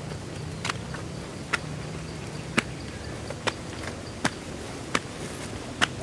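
Footsteps walking down stone steps, one sharp step roughly every second, over a faint steady insect buzz.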